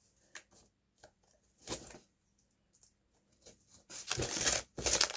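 Tape and cardboard on a cardboard parcel box being torn at by hand: a few short ripping noises, a brief one near the middle and a louder, longer run near the end.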